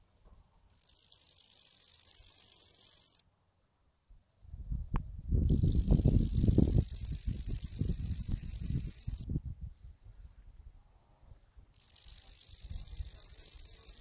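Katydid (bush-cricket) stridulating: three long, high-pitched buzzing trills of a few seconds each, every one starting and stopping abruptly.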